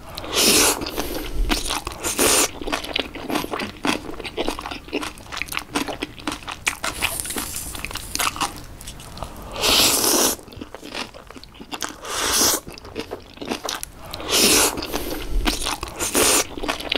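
Close-miked eating sounds of kimchi and Jjapaghetti noodles: steady crunching and chewing, with a crisp crackle throughout and about six louder noisy bursts of half a second or so.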